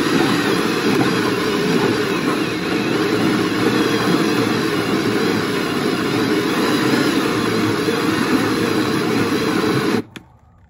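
Power drill spinning a hole saw through a boat's fiberglass hull, cutting around an old through-hull transducer to remove it: a steady, loud grinding that cuts off suddenly near the end.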